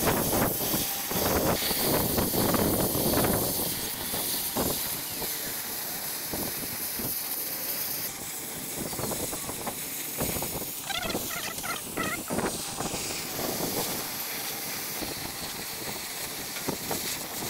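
Oxy-fuel cutting torch hissing steadily as it burns through a steel truck chassis rail, with an irregular crackle from the molten steel at the cut, strongest in the first few seconds.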